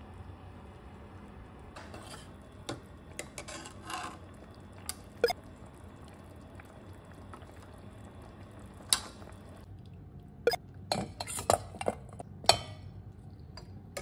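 A metal slotted spoon clinking and scraping against a stainless-steel cooking pot as pieces of mutton are lifted out of the broth, over the steady sound of the broth simmering. The clinks come one at a time at first, then close together in the last few seconds.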